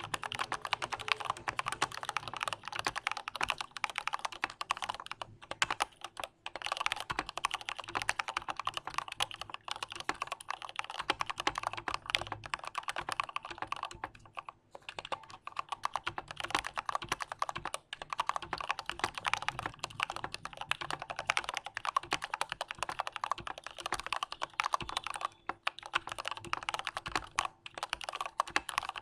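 Fast, continuous typing on a mechanical keyboard with Gateron Clear linear switches on heavy 125 g springs: a dense stream of key clacks, broken by a few short pauses.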